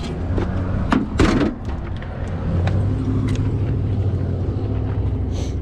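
A motor vehicle's engine running steadily nearby, a low hum that grows louder about two and a half seconds in. A few clicks and a louder knock or scrape come in the first second and a half.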